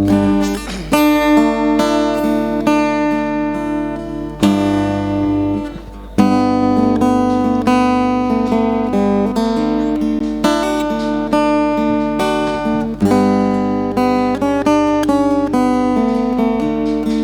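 Acoustic guitar playing a song intro, picked and strummed chords changing every second or two.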